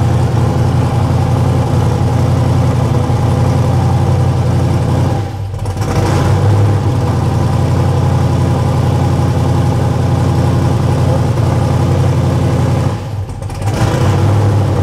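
Twin-turbo 427 cubic-inch LSX V8 (Dart LS Next block) idling unevenly around 1,300 rpm, sagging briefly twice and picking back up. It is running rich because its large injectors are already at their minimum opening time.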